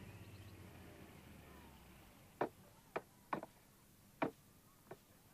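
A low rumble fading out over the first two seconds, then five sharp knocks at uneven spacing.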